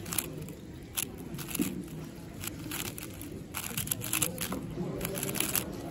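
A 4x4 speedcube being turned fast by hand during a timed solve: rapid, irregular plastic clicks and clacks as the layers snap round, some coming in quick runs.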